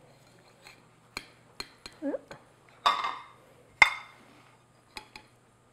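Metal cake server clinking and scraping against a ceramic cake stand and plate as a slice of cake is worked loose and lifted out. It is a string of sharp separate clicks with a short scrape just before the loudest knock, near the middle.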